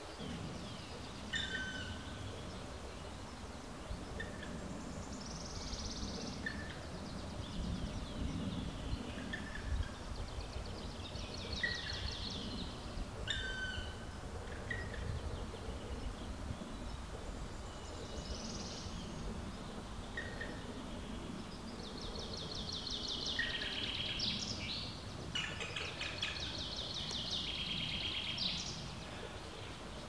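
Black woodpecker nestling begging from its nest hole: repeated harsh, rapidly pulsed high calls about a second long, with short falling chirps between them, over a low steady background rumble.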